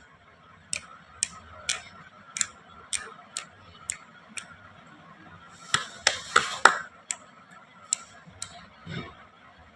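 ASMR clicks and taps: a row of sharp clicks about two a second, a short burst of crinkly crackling about six seconds in, then a few more clicks.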